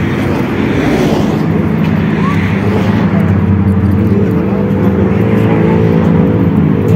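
A motor vehicle engine running steadily at an unchanging pitch, over a hiss of street noise.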